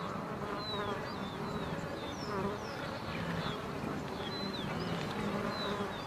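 Flies buzzing in a continuous hum, with many short, falling bird chirps repeating high above it.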